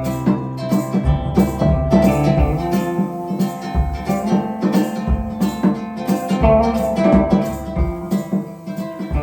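Acoustic guitar strummed in a steady rhythm, an instrumental break in a live song with no singing.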